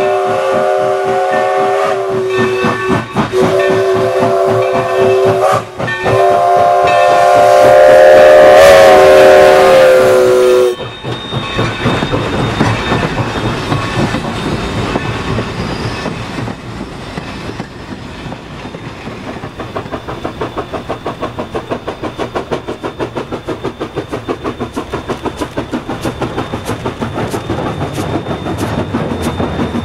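New Haven #3025, a 2-8-2 Mikado steam locomotive, sounds its chime whistle in several long, loud blasts, each a chord of several tones, over the beat of its exhaust; the last blast is the longest and stops abruptly about eleven seconds in. Then comes the clatter of freight cars rolling over the rails, and later a steady rhythmic chuff of the working locomotive, about two to three beats a second.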